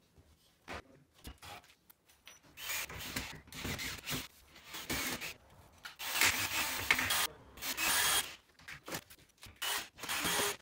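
Bursts of rubbing and scraping against a PVC door frame during fitting, a few seconds each with short pauses between.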